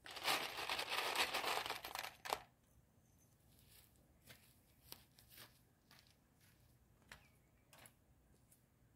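Clear plastic greenhouse sheeting crinkling for about two seconds as it is handled, ending in a sharp click, followed by faint scattered clicks.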